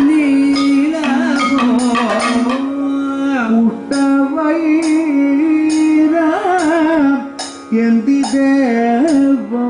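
Kathakali music: a singer holding long notes with quick ornamental turns, over drum strokes and cymbal beats.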